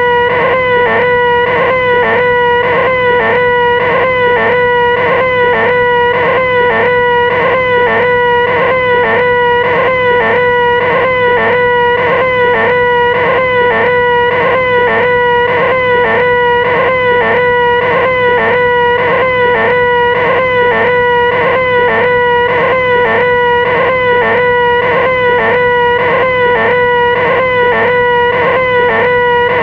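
A person's voice holding one loud, high-pitched 'ahhh' wail without a break, the 'most annoying sound in the world', with a small regular waver about twice a second.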